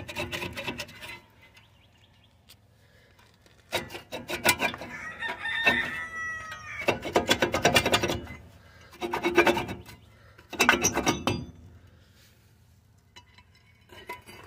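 A rusted rear brake rotor on a 2003 Ford Explorer is twisted and pulled off the hub by hand. It scrapes and grates against the parking-brake shoes inside its hat in several short bursts. A rooster crows once in the background about midway.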